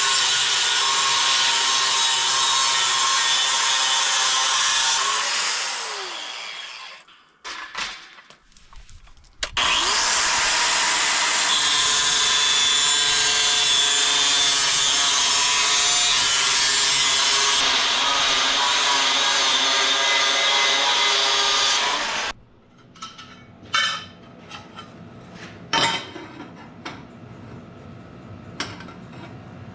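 Angle grinder with a cutoff wheel cutting steel diamond plate, a loud steady scream. It winds down about a fifth of the way in, is off for about two seconds, spins up and cuts again, then stops suddenly about three-quarters of the way through. A few light metal clinks and knocks follow.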